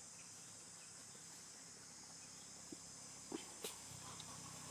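Faint steady high-pitched insect chorus, with a few soft clicks about three seconds in.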